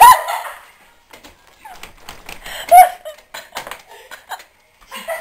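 Hurried footsteps and handling knocks: a quick, irregular run of clicks and knocks, with a short loud voice sound about three seconds in.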